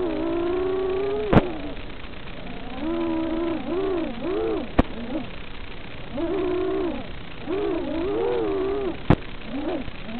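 Racing quadcopter's four 2206 2600 kV brushless motors whining, the pitch swooping up and down as the throttle is worked through turns, in swells of about a second with short dips between. Three sharp clicks cut through it, about a second and a half, five and nine seconds in.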